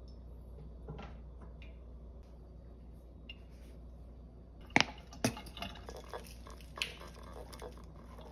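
Table knife clicking and clinking against ceramic plates while butter and jam are spread on halved croissants: a few soft taps, then two sharper clinks about five seconds in and a few more after, over a low steady hum.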